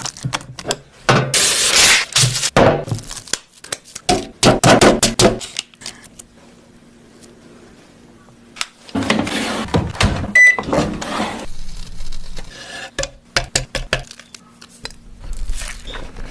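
Kitchen work with dishes and utensils: clinks, knocks and several longer noisy scraping or stirring passes, with a quieter stretch carrying a faint steady hum and a short high beep about ten seconds in.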